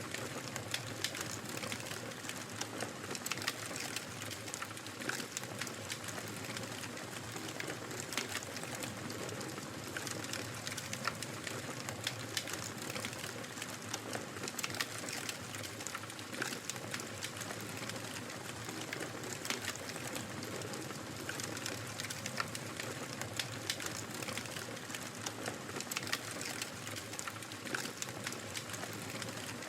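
Wood fire crackling in a fireplace: a steady hiss with many small, sharp pops and snaps scattered throughout.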